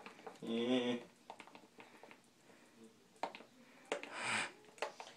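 A short murmured vocal sound from a person, then scattered light clicks and taps, and a brief breathy hiss about four seconds in.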